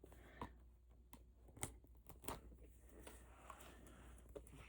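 Near silence, with a few faint clicks and rustles of a small box and its packaging being handled.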